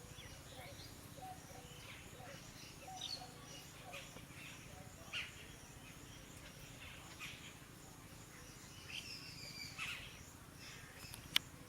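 Scattered short bird chirps over a steady low background hum, with one sharp click shortly before the end.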